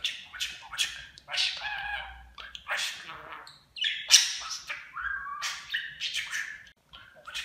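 Budgerigar chattering in a quick, unbroken run of short, scratchy warbling syllables, its mimicked talk mixed with calls.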